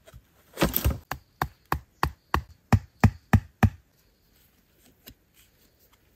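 Sharp blows on wood while a trap frame is being built, about ten in a row at roughly three a second, stopping a little past halfway; afterwards only a few faint knocks.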